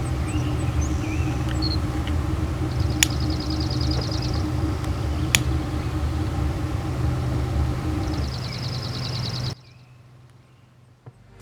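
A vehicle engine running steadily, with birds chirping and trilling above it and two sharp clicks. About nine and a half seconds in, the engine sound cuts off abruptly to a much quieter background.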